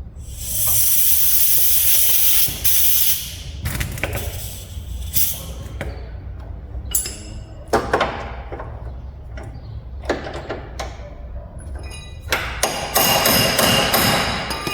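Metal hand tools knocking and clinking against the steel front suspension of a pickup as wrenches are fitted to and worked on its bolts. Between the knocks come stretches of hissing noise.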